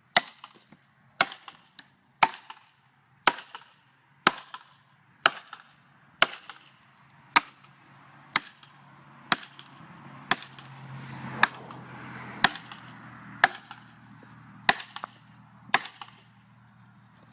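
Hand-struck blows into a tree being felled, about one a second, each a sharp crack with a short ringing tail.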